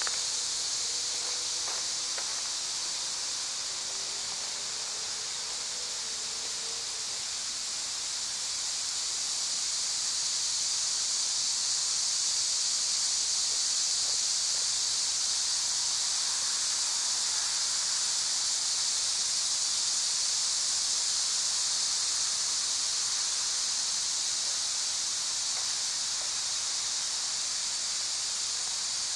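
Steady high-pitched insect chorus, a continuous hiss-like drone that swells slightly partway through.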